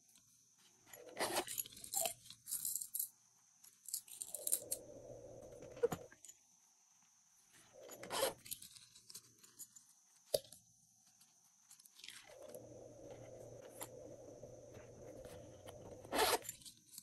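Hands rubbing and turning over silicone character-shaped cases, making several bursts of scraping, crunching handling noise, with one sharp click about ten seconds in.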